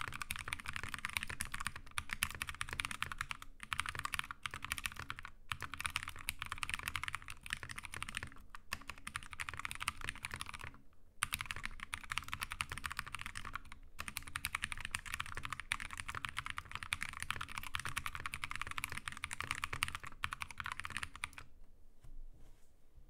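Steady fast typing on a Glorious GMMK TKL tenkeyless mechanical keyboard with Drop Halo True tactile switches: a rapid stream of keystroke clicks with brief pauses, the longest about 11 seconds in, stopping shortly before the end.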